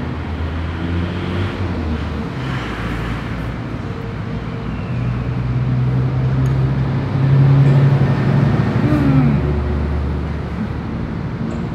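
Road traffic going by, with one vehicle's engine growing louder and passing about two-thirds of the way through.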